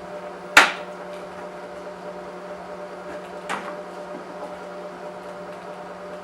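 Sharp click about half a second in and a softer one around three and a half seconds, from parts of a BMW E39 headlight being handled as its bulb is taken out, over a steady hum.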